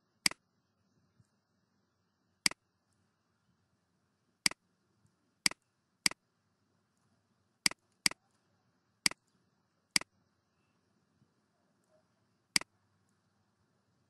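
Computer mouse clicking about ten times at irregular intervals, each click short and sharp, with near silence between them.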